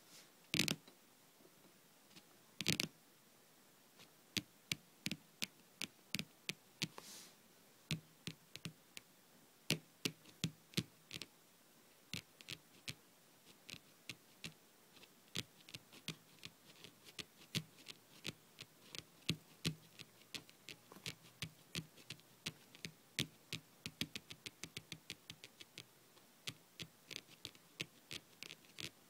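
Long painted fingernails tapping on a tabletop: sharp, light clicks in an irregular patter. A few louder taps come in the first few seconds, and the tapping grows quicker and denser after that.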